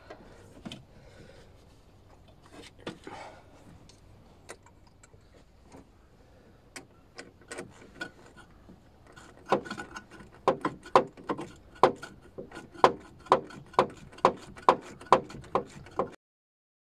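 Scattered tool clicks and knocks, then from about halfway in a steady run of sharp clicks, about three a second, typical of a ratchet driving a socket to tighten a hose clip on a silicone boost hose. The sound cuts off suddenly near the end.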